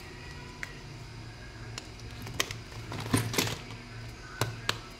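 Small clicks and taps of plastic candy toys and wrappers being handled, with a short cluster of clicking and crinkling about three seconds in and two sharp clicks near the end, over a low steady hum.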